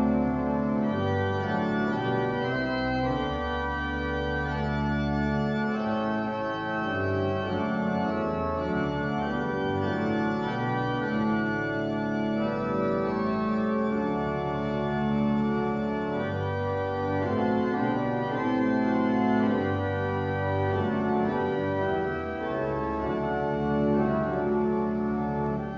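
Organ playing a slow piece in sustained chords, with deep pedal bass notes changing every second or two.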